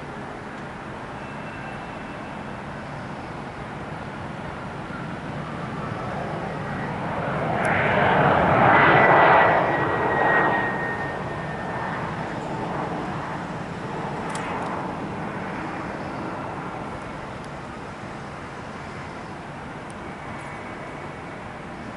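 Jet airliner passing by: its engine noise swells to a peak about nine seconds in, with a whine that drops slightly in pitch, then fades away.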